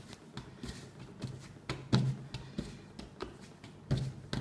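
Ball of gluten-free pizza dough being kneaded by hand on a silicone baking mat: soft, uneven thuds and taps about every half second as the dough is pressed down and turned.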